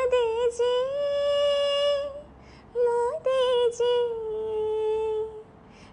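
A woman's voice singing a wordless, humming-like melody with no accompaniment, in two long held phrases of about two seconds each with a short gap between.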